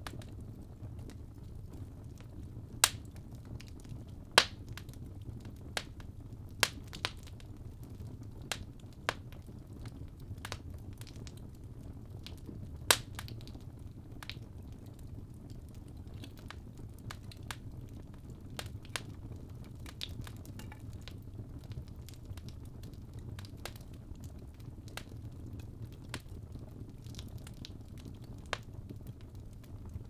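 Fire burning in a fireplace: a low, steady rumble of flames with irregular sharp crackles and pops, a few loud ones in the first half and many smaller ones throughout.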